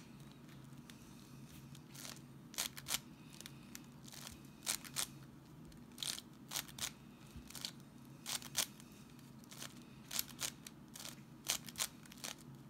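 Plastic layers of a 7x7 puzzle cube being turned by hand: irregular sharp clicks and clacks, often in quick pairs or short clusters, over a faint steady low hum.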